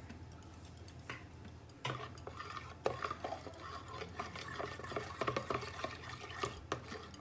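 A metal spoon stirring a thin milk-and-biscuit mash in a plastic bowl, starting about two seconds in. It makes repeated light clinks and scrapes against the bowl.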